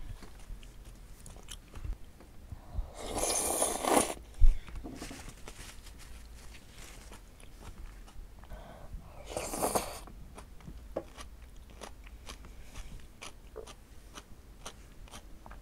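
Close-miked eating sounds: wet chewing of glass noodles in spicy sauce with many small mouth clicks, two louder, longer noisy passes about three and nine seconds in, and a sharp knock about four seconds in.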